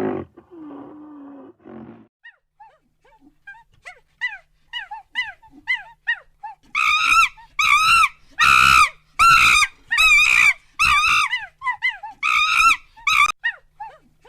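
Animal calls: a brief low growl, then a rapid series of short honking calls that rise and fall in pitch, many overlapping and loudest in the middle, then thinning out near the end.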